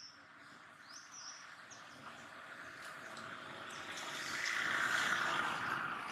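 Outdoor ambience: small birds give short rising chirps, then a steady rushing noise swells to its loudest about five seconds in and begins to ease.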